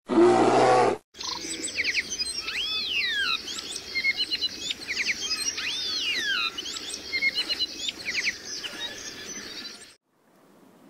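A loud, low-pitched sound about a second long, then birdsong: chirps, trills and repeated whistles that rise and fall, cutting off suddenly near the end.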